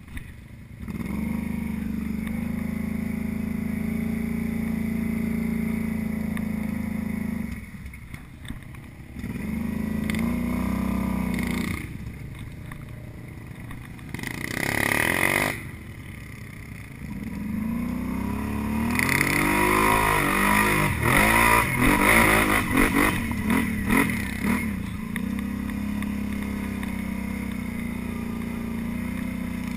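ATV engine running steadily, then revving up and down in several surges as it pulls along a muddy trail, with a short rising whine about halfway and a stretch of hard revving and rattling before it settles back to a steady run.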